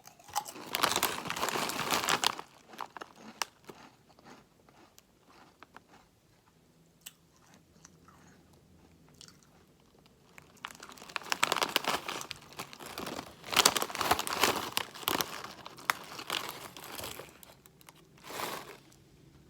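Someone biting and chewing Rap Snacks potato chips close to the microphone: loud crisp crunching in bouts, about a second in for a couple of seconds, then a longer bout in the second half and a short one near the end, with softer chewing between.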